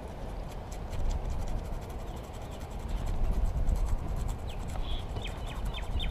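Short scratchy strokes of a scuffer rubbing a bicycle inner tube, roughing up the rubber around snakebite (pinch-flat) holes so a patch will stick. Near the end a quick run of high, falling chirps cuts in over a low rumble.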